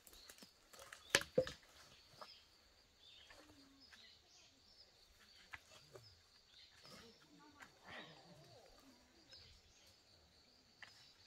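Firewood being worked by hand in a woodpile: a sharp knock of wood about a second in and a softer one just after, then faint scattered knocks and rustling over a thin, steady high buzz.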